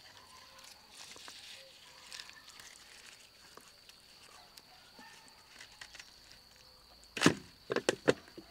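Gloved hands rubbing a thick tomato-paste marinade into a rack of raw beef ribs, making soft wet squelching and smearing sounds. About seven seconds in there is one louder wet slap of handling, then three or four more in quick succession.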